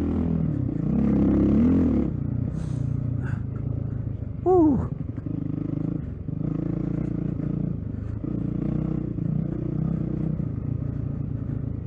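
Dirt bike engine running as the bike is ridden over a rough trail, its note pulsing with the throttle, with a short loud falling sound about four and a half seconds in.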